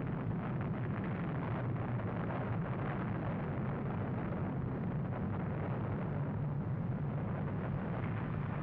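Redstone rocket's engine roaring at liftoff and during the climb: a steady, deep rumbling noise that holds at an even level throughout.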